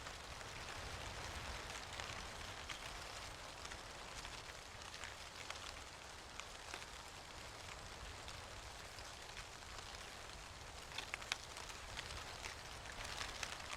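Falling leaves rustling and ticking: a steady haze of many small dry ticks, with a few sharper ticks about eleven seconds in.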